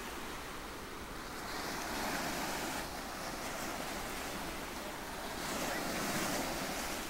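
Ocean surf, a steady rush that swells twice as waves wash in, once about a second and a half in and again near the end.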